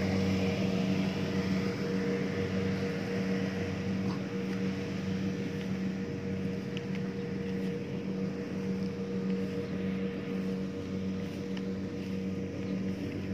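Rice combine harvester's diesel engine running steadily, a continuous even drone.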